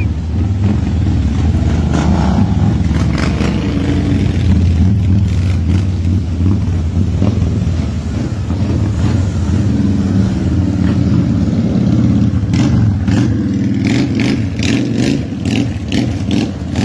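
Several motorcycle engines running as a group of bikes pulls away one after another, a steady deep engine sound that swells and eases as each bike passes. There is a run of sharp clicks near the end.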